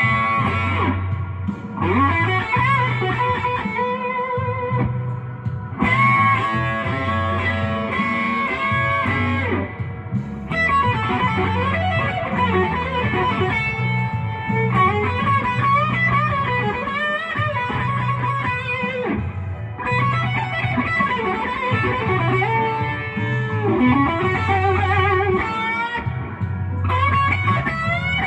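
Electric guitar playing a slow blues lead with bent notes, over a steady repeating low bass line.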